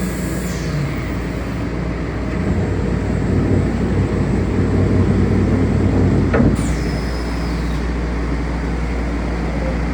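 Steady mechanical running noise from machinery, swelling for a few seconds in the middle, with a sharp click about six and a half seconds in followed by a falling high whine.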